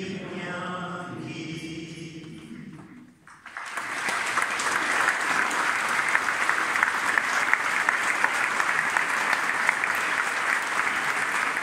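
A choir sings the last notes of a song, which die away about three seconds in; after a brief hush a large crowd breaks into steady applause that carries on to the end.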